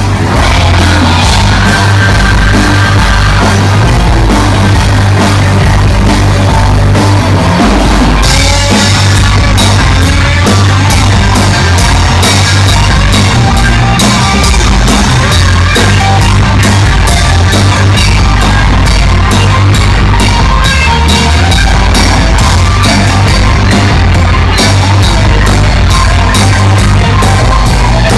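Loud hard rock music from a band: electric guitar and bass over a steady, pounding drum kit beat.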